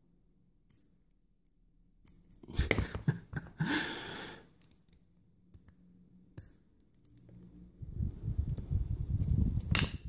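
Small metal tools clicking and scraping against a lock cylinder as a stubborn retaining clip is worked off. There is a short burst of clicks and scraping about two and a half seconds in, then a longer run of rubbing and clatter from about eight seconds, ending in a sharp click.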